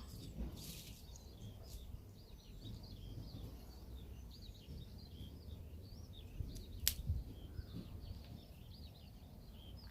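Many small birds chirping and twittering, over a low rumble, with one sharp click about seven seconds in.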